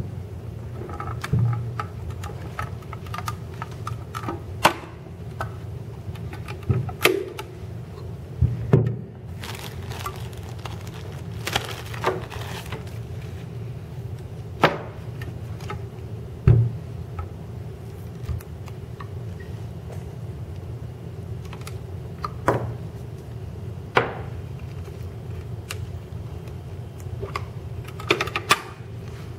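Handling noises from a Rys-T helmet replica and its packaging: irregular clicks, knocks and some plastic rustling as the helmet is turned over and the coiled headset cable is pulled out. A steady low hum runs underneath.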